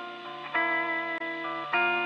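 Background music: guitar chords struck and left to ring out, a new chord about half a second in and another near the end.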